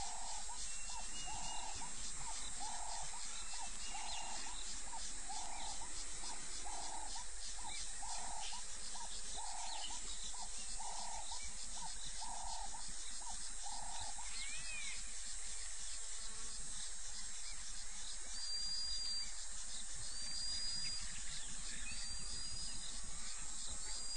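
Crickets trilling in a steady, dense chorus. For the first half another animal's soft, low call repeats about every second and a half, and short high chirps come in near the end.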